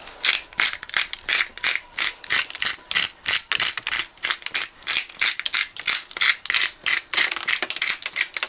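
Hand spice grinder being twisted over steaks, grinding out cracked black pepper and sea salt: a rapid, rhythmic crunching rattle of several clicks a second.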